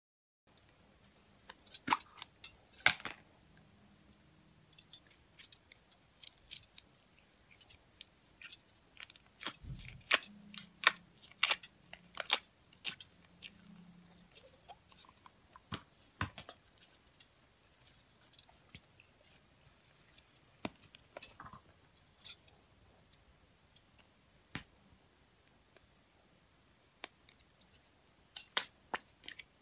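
Slime being kneaded and pressed by hand, giving irregular sharp clicks and sticky pops. There is one dull thump about ten seconds in.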